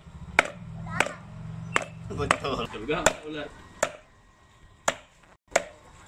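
A long knife chopping through snake meat and ribs onto a thick wooden chopping board: about seven sharp chops, roughly one a second.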